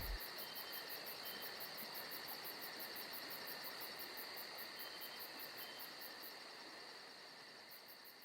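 Faint insects chirping, a rapid high pulsing about five times a second over a steady high buzz, fading out near the end.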